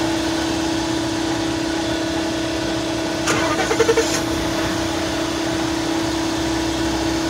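A vehicle's engine is started, with a brief cranking rattle about three seconds in, over a steady hum that runs throughout.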